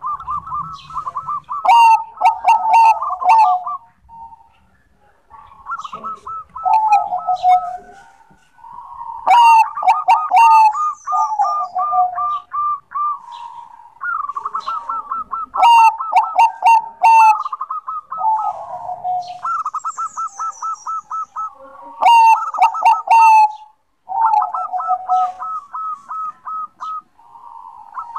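Zebra dove (Bangkok-strain perkutut) singing its cooing song over and over: each phrase is a quick run of staccato notes followed by lower, drawn-out coos, repeating about every five seconds. Sharp high ticking notes come in during several of the phrases.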